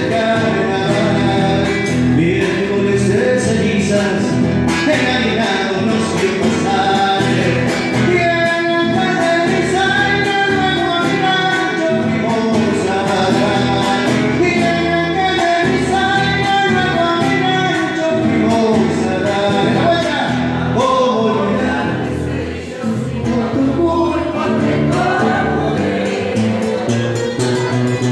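A man singing a song through a microphone and PA speaker, accompanying himself on acoustic guitar.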